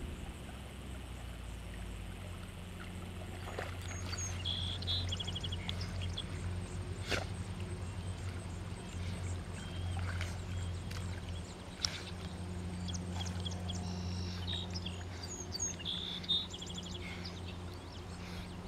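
German Shepherd dog paddling through pond water with soft splashing over a steady low hum. A bird gives a short rapid trilling call twice, about four seconds in and again near the end.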